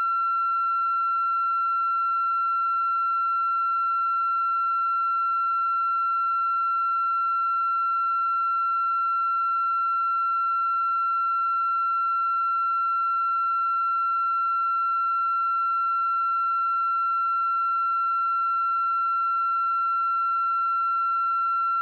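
A steady, high-pitched electronic tone at one unchanging pitch, with fainter overtones above it.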